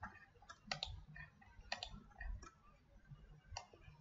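Faint, irregular clicks of a computer mouse.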